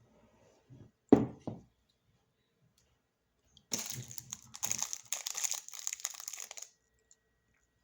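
A single loud thump about a second in, then about three seconds of a snack wrapper crinkling and rustling as it is handled.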